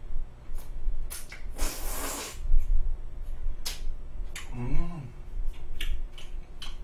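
A man slurping up forkfuls of spaghetti, with one long slurp about two seconds in and a few short sharp clicks of the metal fork against the pan. A brief hummed "mm" comes about five seconds in.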